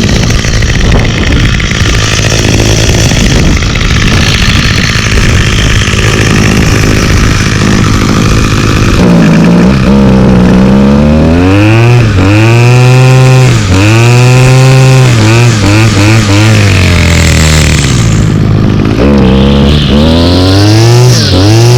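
Small two-stroke string trimmer engine running, steady at first, then revved up and back down repeatedly from about nine seconds in. The owner says the engine runs decently but still bogs when throttled too fast, and puts this down to the carburetor needing more adjustment.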